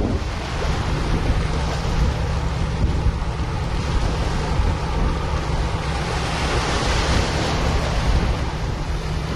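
Wind buffeting the microphone with the wash of the sea, in gusts that swell twice, over a steady low hum of a ship's engines.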